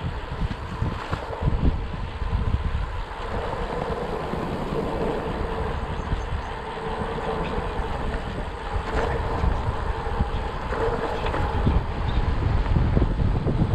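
Bicycle being ridden: wind buffets the microphone in gusts over the tyres' rolling noise, with a faint steady hum underneath.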